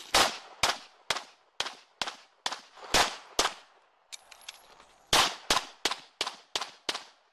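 Semi-automatic pistol fired in quick succession. It fires eight shots about half a second apart, pauses for about a second and a half, then fires six more slightly faster shots, each a sharp crack with a short echo tail.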